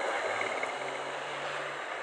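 Royal Enfield Classic 350's single-cylinder engine running on the move through traffic, heard under steady road and traffic noise.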